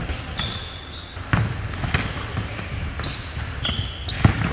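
Basketball bouncing on a wooden gym floor, about five irregular thuds, with short high sneaker squeaks on the hardwood in between.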